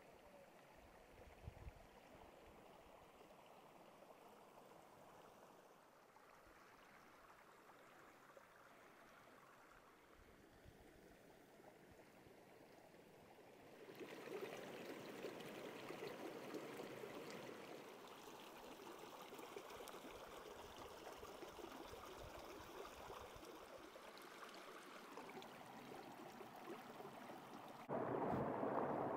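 Shallow stream running over stones. It is faint at first, grows louder about halfway through, and louder still near the end, close to a small cascade.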